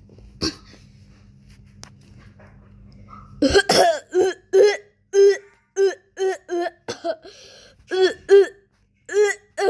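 A child's voice making a quick run of short pretend coughs and throat-clears, about ten in a row, starting about three and a half seconds in.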